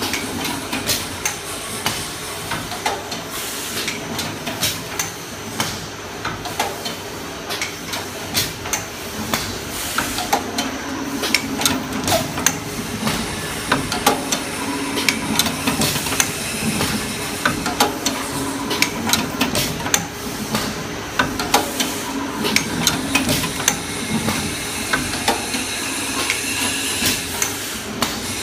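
Paper baking cup forming machine running, its mechanism clattering with quick, repeated metallic knocks over a steady hiss.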